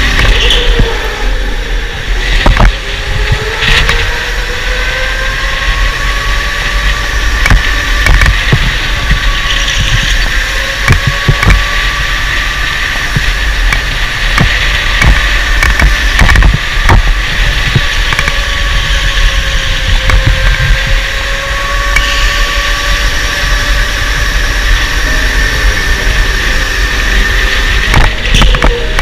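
Electric go-kart's motor whining, its pitch rising and falling with speed through the corners, over a heavy low rumble, with scattered sharp knocks and rattles from the kart.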